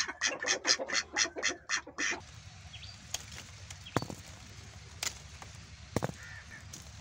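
Domestic ducks quacking rapidly, about five quacks a second, which stop about two seconds in. A few faint sharp clicks follow.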